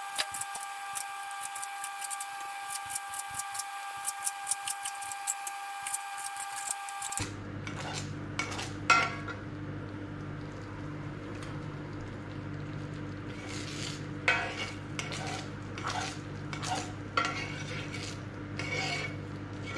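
A knife slicing cooked meat on a plastic cutting board in quick clicking strokes over a steady high-pitched whine; about seven seconds in this gives way to a metal spoon stirring and scraping thick cornflour-thickened gravy in a cast-iron skillet, in scattered strokes over a steady low hum.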